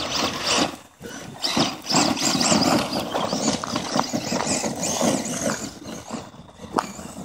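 Electric RC monster truck driving hard across loose gravel: a high motor whine that rises and falls with the throttle, over the crunch and scrabble of tyres on dirt and stones. The tyres are not glued to the rims, so they slip.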